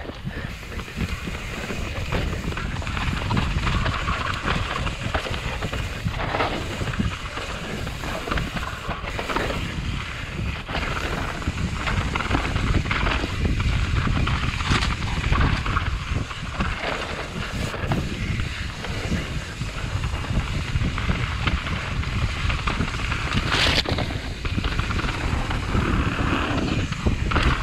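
Mountain bike riding a dirt downhill trail: wind buffeting the camera microphone, with the tyres rolling over the ground and the bike rattling and clicking over bumps.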